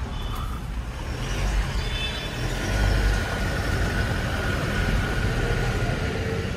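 Vehicle and street-traffic noise heard from inside an SUV's cabin: a steady low engine rumble with a faint, steady high tone running through the middle.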